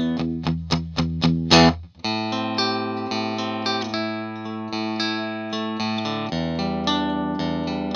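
Fender Stratocaster electric guitar being played: a run of quick picked notes for the first two seconds, a short break, then ringing notes over a held low bass note that changes about six seconds in.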